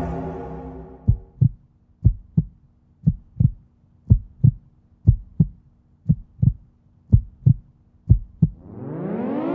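Heartbeat sound effect: eight slow double thumps, about one beat a second, over a faint low hum as the music fades out. Near the end an air-raid siren begins winding up, rising in pitch.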